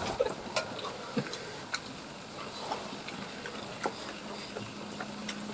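Scattered light clicks and taps of cutlery and dishes during a meal, irregular, about one every half second to second.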